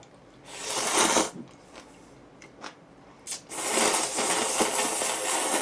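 Close-miked eating noises over a bowl of instant black-bean noodles: a short burst about half a second in, then a longer stretch from about three and a half seconds on.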